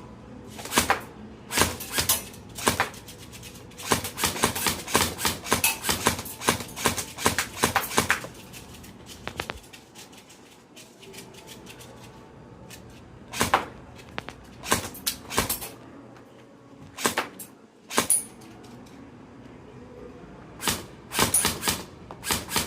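Airsoft gun shooting: a quick run of sharp cracks for the first eight seconds or so, then a lull, then scattered single shots and a short burst near the end.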